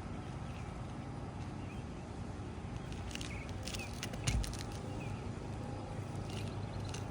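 Steady low wind rumble on the microphone, with a few faint short chirps of a small bird, some light clicks, and a single dull knock a little after four seconds in.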